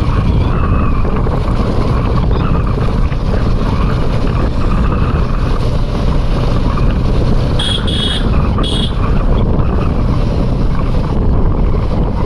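A road vehicle in motion, with a steady engine and road rumble and wind buffeting the microphone. Three short high beeps sound about eight seconds in.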